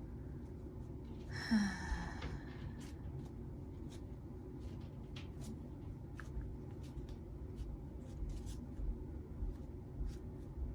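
Quiet room tone with a short breathy vocal sound, like a sigh, about a second and a half in, followed by scattered faint clicks and taps of something small being handled.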